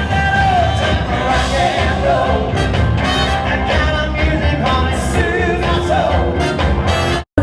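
Rock and roll band playing with a lead singer, a steady beat and full instrumentation. The sound cuts out for a moment near the end.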